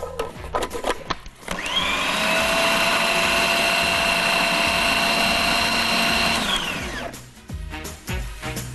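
Electric blender starting about a second and a half in with a rising whine, running steadily for about five seconds, then winding down. It is pulsing a spicy sauce (garlic, coriander, cumin) to a coarse texture.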